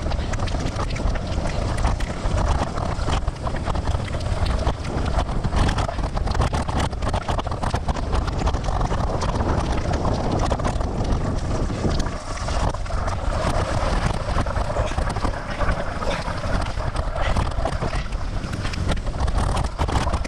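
Wind buffeting the microphone of a camera on a moving bicycle, over a steady wash of tyres on a wet, rain-soaked road. Many small knocks and ticks run through it as the bike rolls over broken, puddled pavement.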